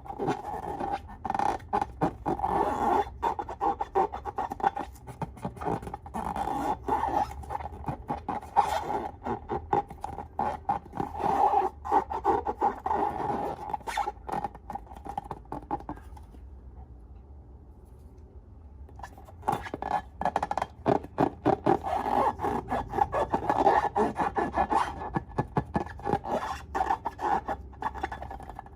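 Slime being worked and squished, a dense sticky crackling and rubbing that stops for about three seconds past the middle and then resumes.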